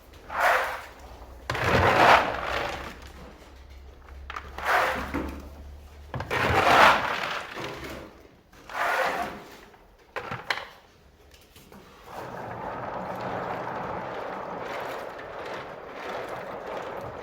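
Hard ginkgo nuts rattling and scraping through a sorting machine. The rattle comes in several loud surges during the first ten seconds or so, then settles into a steady rattle from about twelve seconds in.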